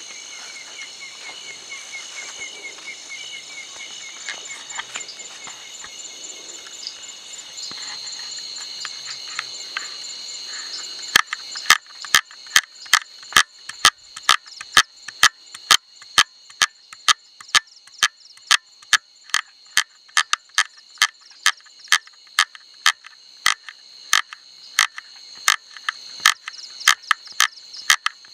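A frog calling close at hand with sharp, loud clicking calls at about two a second, starting a little over ten seconds in, over a steady high chorus of night insects.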